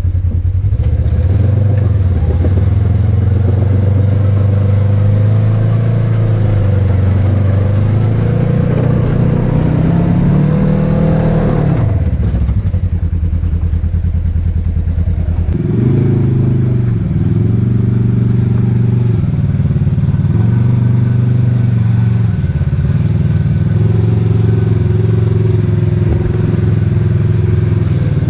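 Polaris RZR side-by-side engine running, revved up for a few seconds about a third of the way in and let back down, then given a series of short blips of throttle from about halfway on, as the machine works to climb a wet, muddy hill.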